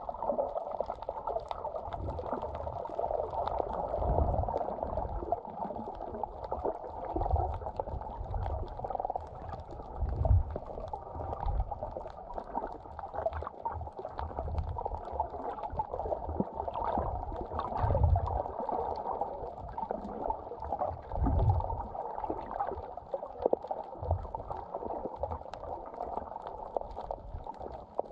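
Muffled underwater water noise picked up by a submerged camera while snorkeling, a steady hiss-like wash with irregular low thumps and sloshes every second or few.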